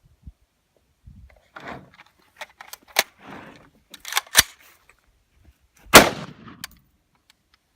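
AR-15-style rifle firing single semi-automatic shots: one about three seconds in, two close together a second later, and the loudest about six seconds in, with fainter clicks and rustles of gun handling between them.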